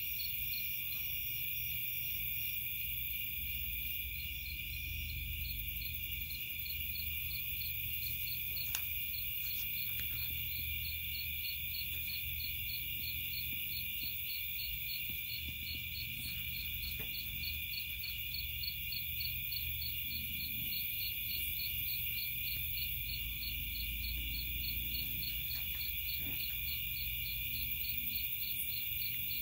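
Night insect chorus of crickets and other insects: a steady high-pitched buzz overlaid with a regular pulsing trill, over a low rumble.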